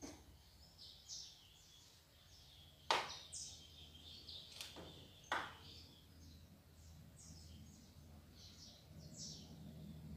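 Small birds chirping repeatedly in the background. A utensil taps against an aluminium baking pan three times as batter is swirled: once about three seconds in, then twice close together around five seconds.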